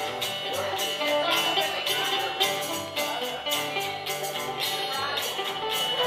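Live band music: an upbeat tune with a steady bass line changing notes about twice a second and jingling percussion on the beat.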